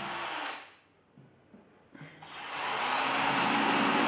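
Corded electric drill boring pilot holes through 12 mm MDF. It runs, stops about half a second in, then starts again about two seconds in and runs on, louder.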